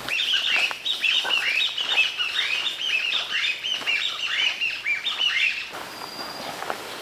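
Birds chirping: many short calls that sweep down in pitch, overlapping rapidly, then stopping about six seconds in.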